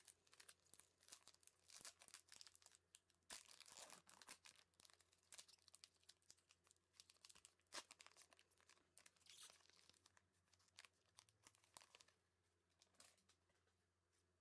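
Faint crinkling and tearing of a trading-card pack wrapper as gloved hands rip it open and pull the cards out. It is a dense run of crackles that is busiest in the first half and dies away a couple of seconds before the end.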